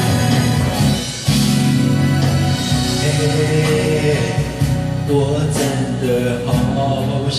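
Backing track of a slow Mandarin pop ballad, with a man singing along into a handheld microphone.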